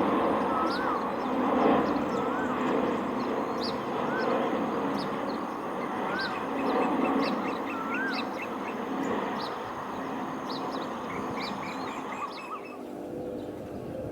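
Birds calling over the steady rumble of a jet aircraft. One bird gives a short rising-and-falling call about every two seconds, with high chirps and quick runs of ticks around it. The jet noise fades and drops away near the end.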